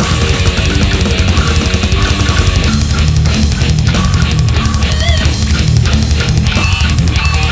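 Death metal studio recording: loud, distorted low-tuned electric guitars and rapid drumming in a continuous dense wall of sound, with a couple of short high-pitched squeals cutting through past the middle.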